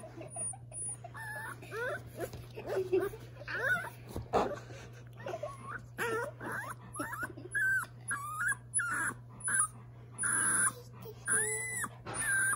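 Young puppy whining in a run of short, high-pitched cries that come more often in the second half.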